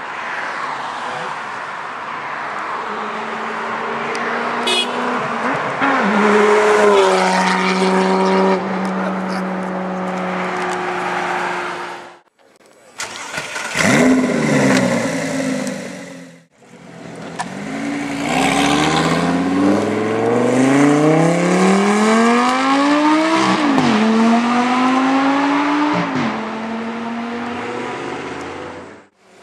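Lamborghini Gallardo V10 engines accelerating hard. The pitch climbs and drops back at each upshift, then climbs again. Three separate runs are cut together with abrupt breaks, and the last is a long climb from low revs through two shifts.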